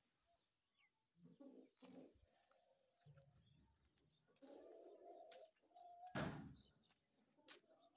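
Faint pigeon cooing about halfway through, amid quiet clicks, with one short louder knock about six seconds in.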